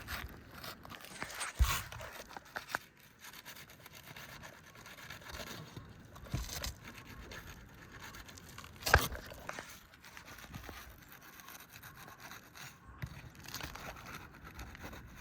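A pry tool scraping and working under asphalt roof shingles to strip them off, with irregular scrapes and crackles. Two sharp knocks come through, about one and a half seconds in and about nine seconds in, the second the louder.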